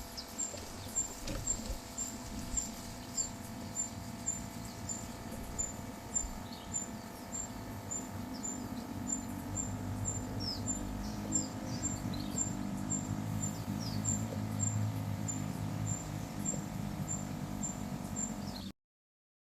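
Birds chirping in short, scattered high notes over a steady, even high ticking about twice a second. The sound cuts off suddenly near the end.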